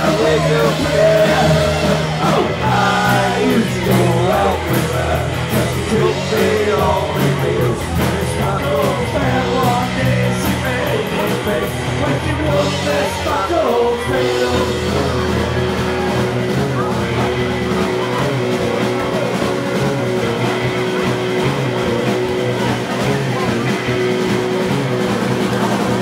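Live rock band playing amplified electric guitar, bass guitar and drum kit, loud and steady; about halfway through, long held notes come in.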